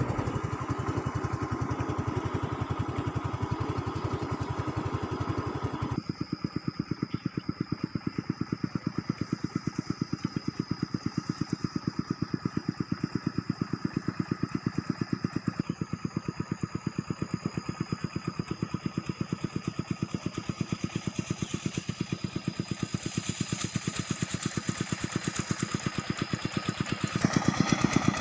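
Small engine running with an even, rapid beat and a steady high whine. The sound changes about six seconds in and gets louder near the end.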